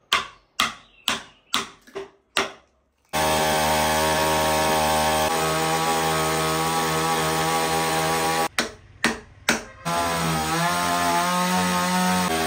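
Petrol chainsaw cutting into a teak root stump. About six short bursts in the first three seconds, then it runs steadily at high speed, with a few brief breaks around the ninth second and its pitch shifting as the chain bites into the wood near the end.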